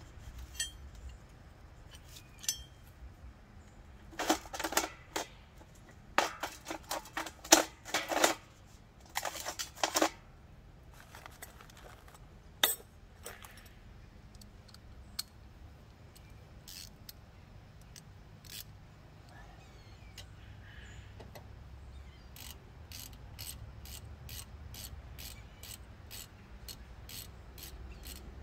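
Small metal parts and tools clinking and clattering in a few short flurries. From a little past the middle, a hand ratchet clicking steadily, about two to three clicks a second, as a bolt is run on the rear brake.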